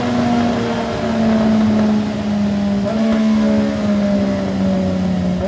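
CFMOTO 675SR motorcycle's three-cylinder engine running at high revs through its exhaust: one steady note that slowly sinks in pitch, stepping up briefly about three seconds in and again at the end.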